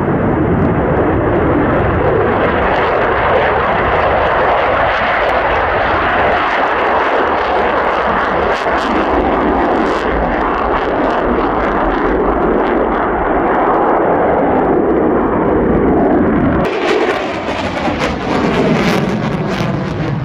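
Loud, steady jet noise from an F-35A's afterburning turbofan as the fighter takes off and climbs on afterburner. About three-quarters of the way through the sound switches abruptly to a somewhat quieter passing jet with a wavering, sweeping tone.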